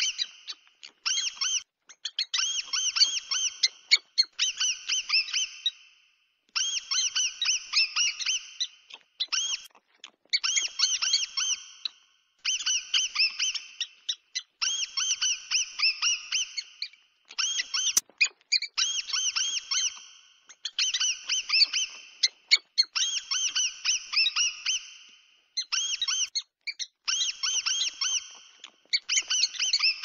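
Mouse squeak sound effect: quick runs of high-pitched squeaks, several a second, coming in bursts of one to two seconds with short gaps between, repeating throughout.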